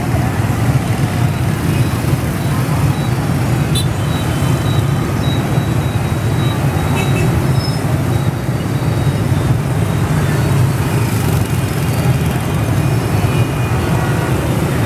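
Heavy peak-hour street traffic, mostly motorbikes and scooters with a few cars: many small engines running at once as they stream past, a steady dense noise with no breaks.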